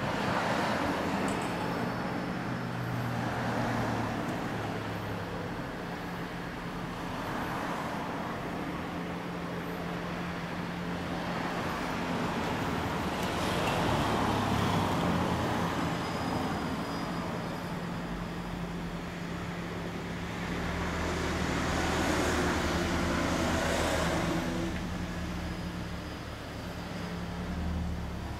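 Road traffic passing in waves, a car every few seconds, over a steady low engine hum.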